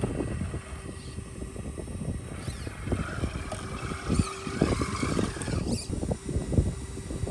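RC rock crawler's electric drive motor and gears whining, rising and falling in pitch, mostly in the middle few seconds. Wind buffets the microphone throughout.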